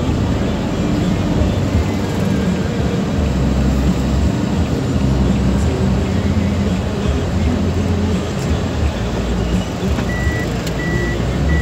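Road and engine noise inside a moving van's cabin: a steady low rumble with tyre noise. About ten seconds in, a short high electronic beep starts repeating, roughly twice a second.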